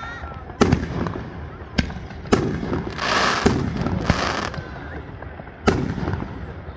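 Aerial firework shells bursting: about five sharp bangs spread over a few seconds. In the middle comes a spell of dense crackling from a glittering crackle-effect burst.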